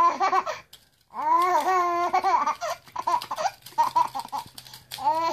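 A baby laughing: a short laugh at the start, a brief pause, then a long drawn-out laugh followed by quick rhythmic bursts of laughter.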